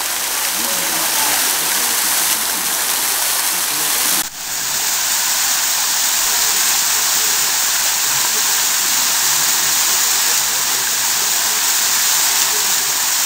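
Fountain water splashing, a steady rushing noise: jets falling into a pool, then, after a break about four seconds in, water pouring from the Lion Cascade's jets and spilling over the ledges of its stepped basin.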